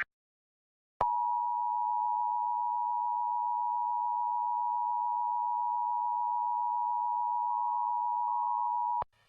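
Emergency Alert System two-tone attention signal, 853 and 960 Hz sounding together as one steady tone, held for about eight seconds after a second of silence and then cutting off sharply. It marks the start of an EAS alert, here a required monthly test, just before the spoken message.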